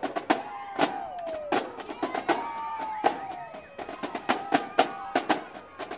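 Marching band drumline playing a cadence: sharp snare and bass drum strokes at an uneven rhythm, with sliding, falling pitched sounds over them.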